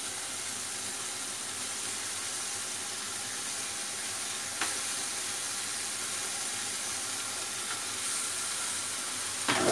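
Tomato masala in oil and ghee frying in a steel kadhai with a steady sizzle, and a single click about halfway through.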